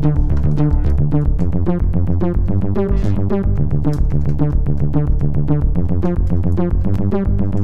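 Electronic background music with a steady driving beat over sustained bass notes.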